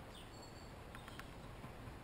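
Faint outdoor ambience with a few short, high songbird chirps, one gliding down in pitch, and two light clicks about a second in.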